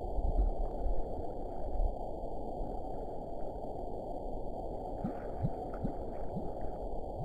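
Muffled underwater sound: scuba divers' regulator bubbles gurgling, with heavier rumbling in the first couple of seconds and a few short rising blips about five to six and a half seconds in.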